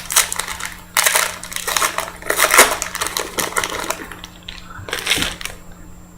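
Trading cards being handled and flipped through, a run of irregular papery rustles, slides and clicks in bunches.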